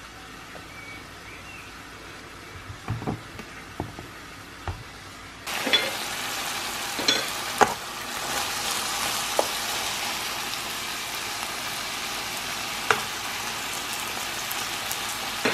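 Food frying in a pan: after a few knocks, the sizzling starts abruptly about five seconds in and runs on steadily, with a utensil clacking against the pan now and then as it is stirred.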